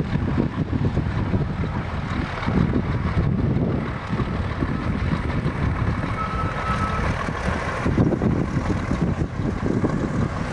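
Wind buffeting the microphone over the low rumble of a small diesel locomotive and its coaches rolling past on the track. About six seconds in, a thin high tone sounds for about a second.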